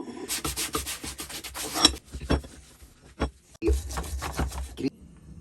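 Quick back-and-forth scraping strokes of hand scrubbing on a metal vise part, in two runs with a couple of sharp clicks between them.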